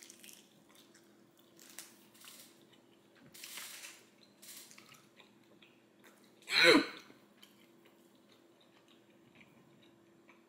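Close-miked chewing and biting of a glazed baby back pork rib: soft, wet chews and mouth noises now and then, with one brief, much louder mouth sound about six and a half seconds in.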